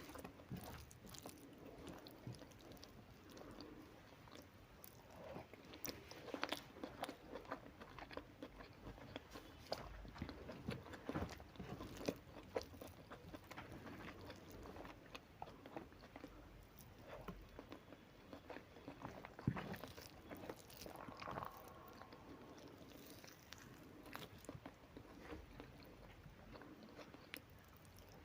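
A person eating a meal of rice with curry and fried fish: close-up chewing and biting, with irregular small clicks and mouth smacks throughout.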